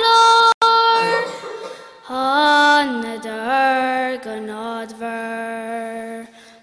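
A young girl singing unaccompanied in Irish. A long held note fades away, broken by a very short drop in the sound just after the start. About two seconds in she begins a new, lower phrase with slow glides between held notes.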